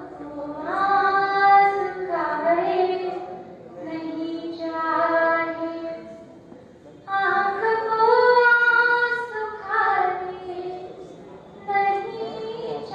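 A woman singing lines of a Hindi poem into a microphone, in long held, gliding notes. There are about four sung phrases with short breaths between them.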